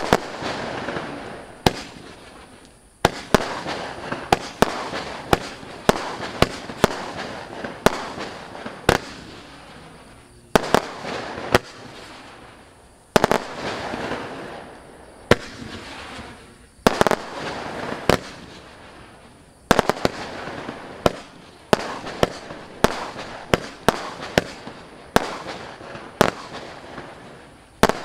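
A 63-shot, 20 mm compound firework cake firing: sharp shots come roughly every one to two seconds, each followed by a dense spell of crackling stars.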